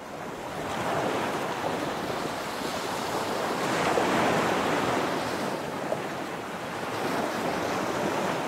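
Ocean surf: waves washing in and drawing back, a steady hiss of water that fades in at the start and swells roughly every three seconds.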